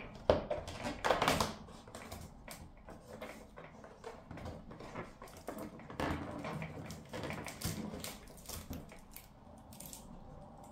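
A cardboard advent calendar door being pushed in and torn open by fingers: crackling, tearing and scraping of card, loudest about a second in, with more crackles and taps around six seconds in.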